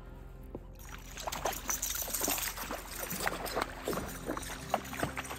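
Hooked largemouth-type bass splashing and thrashing at the surface beside a float tube as it is reeled in, starting about a second in as a rush of uneven splashes.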